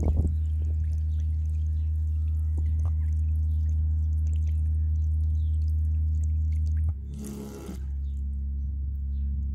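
JBL Clip 3 Bluetooth speaker held just under water, playing a deep, steady bass note while water splashes and drips off its vibrating grille. About seven seconds in, the note changes to a different, quieter one.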